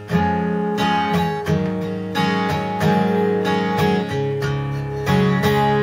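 Six-string acoustic guitar in an open tuning, strummed in a steady rhythm through a short sequence of chords, the open strings ringing on under each change.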